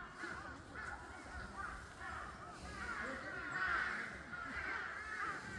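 A flock of corvids calling over one another in a chorus: many short, harsh, arched calls overlapping without a break.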